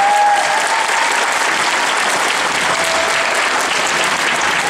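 Audience applauding steadily: a crowd clapping in an assembly hall to welcome the student MCs.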